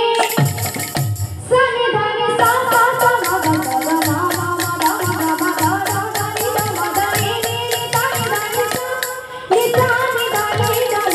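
A girl's voice singing an Odia devotional kirtan through a microphone, with the singing dropping out briefly about a second in and again near the end. She is accompanied by steady strokes on a mridanga drum and the shaking of a hand-held jingle ring.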